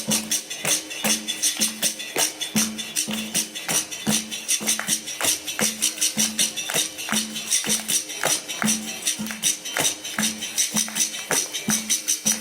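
Capoeira music: a berimbau twanging short low notes in a steady rhythm, about two a second, with a pandeiro's jingles and a shaker rattle over it.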